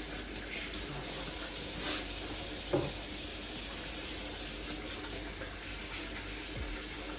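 Kitchen tap running steadily into a sink while hands are washed under it, with a short knock about three seconds in.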